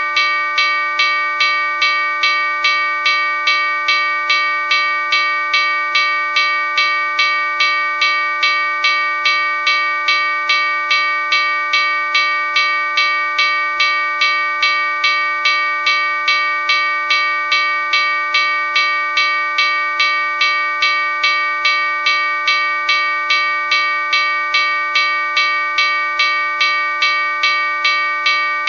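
Locomotive bell ringing continuously, struck about twice a second, each stroke ringing on into the next.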